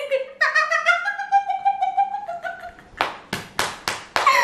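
A high-pitched voice holds one slightly wavering note for about two seconds, then hands clap about five times in quick succession.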